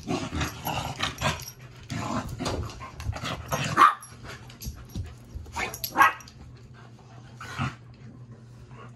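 Dogs barking and growling in play, in irregular bursts, loudest about four seconds in and again at six seconds, then dying down near the end.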